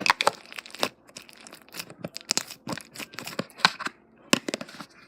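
Hands working a slime and its plastic container: irregular crackling, crinkling and sharp clicking pops.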